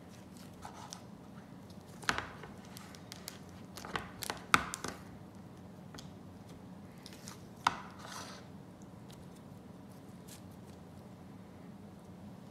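Whipped slime being squeezed and pressed by hand, giving a few sharp crackles and clicks about two seconds in, around four to five seconds, and again near eight seconds, over a faint steady hum.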